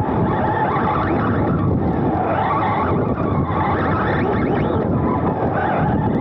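Onboard sound of a Serpent SRX2 2wd electric RC buggy racing: the brushless motor and gear drivetrain whining up and down with the throttle over a steady rattle and rumble of the chassis and tyres on artificial turf.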